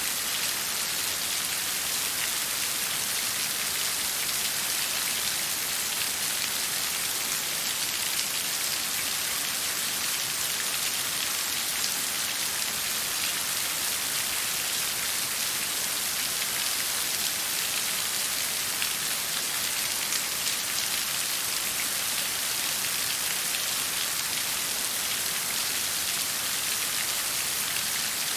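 Water falling or flowing: a dense, even hiss with fine pattering drops, steady and unchanging.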